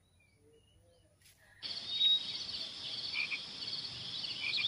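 Dead silence for about a second and a half, then outdoor rural garden ambience. A steady high trilling chorus of frogs or insects pulses evenly, with a few short bird chirps over it.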